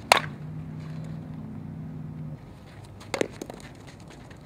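A softball bat striking a pitched ball with a sharp crack right at the start, over a low hum that stops about two seconds later. A second, softer bat-on-ball contact comes about three seconds in.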